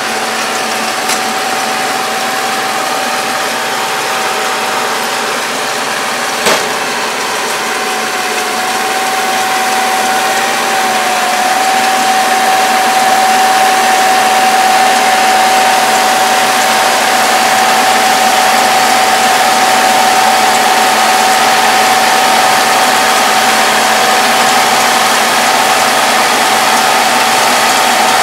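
Kubota tractor's diesel engine running steadily while pulling a round baler through rice straw, with a steady whine over the machine noise. It grows louder about eleven seconds in as it comes closer, and there is one sharp knock about six seconds in.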